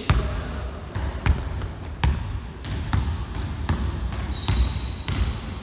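Basketball bouncing repeatedly on an indoor court, sharp thuds a little under a second apart, with a brief high squeak about four and a half seconds in.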